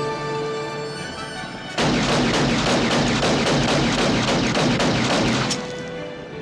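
Film score holding sustained tones, then a loud burst of rapid automatic gunfire lasting about three and a half seconds, starting about two seconds in, before the score carries on underneath.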